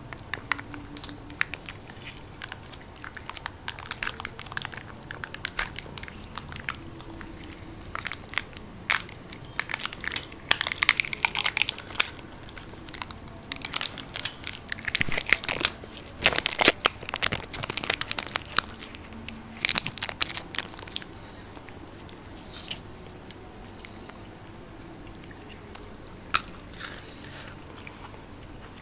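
Close-miked wrappers crinkling as small peanut-filled chocolates are unwrapped, mixed with biting, chewing and crunching, busiest and loudest in the middle.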